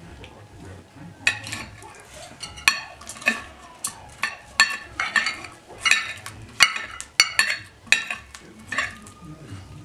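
Metal knife and fork clinking and scraping on a plate as food is cut and picked up: a string of irregular sharp clinks, roughly two a second, with short scrapes between them.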